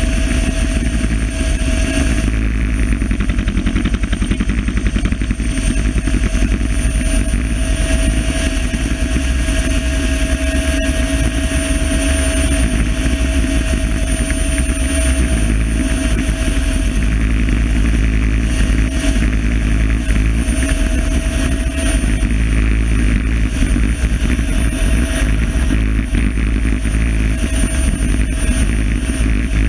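Helicopter running steadily: a fast, low rotor beat under a constant high whine.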